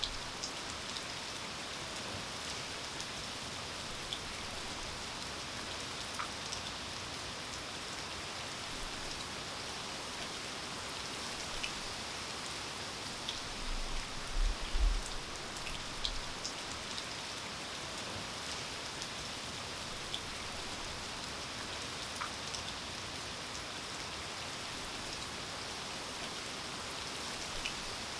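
Steady rain falling, an even hiss with scattered single drops ticking on a hard surface. A few brief low thumps come about halfway through.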